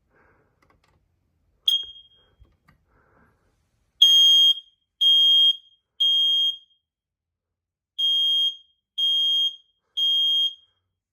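First Alert SM210 smoke alarm sounding under a test-button press: a short chirp, then two rounds of three loud, high-pitched beeps, the temporal-three alarm pattern.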